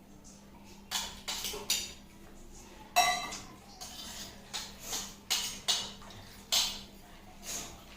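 Eating pani puri: a run of sharp crunches and clinks of dishes, about ten in eight seconds, with one ringing metal clink about three seconds in.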